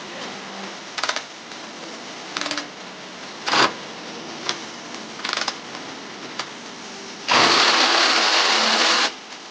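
Clicks and clacks of the tool and its parts being handled, then the 3/8-inch brushless cordless ratchet wrench run free for about two seconds near the end, a loud, steady motor-and-gear buzz that stops suddenly when the trigger is released.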